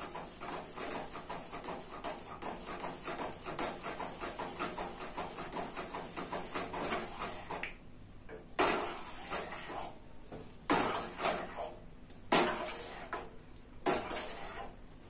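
Metal spoon scraping against a stainless-steel pan while stirring a thick sago-and-milk mixture: quick strokes several a second for about eight seconds, then four separate scrapes a second or two apart.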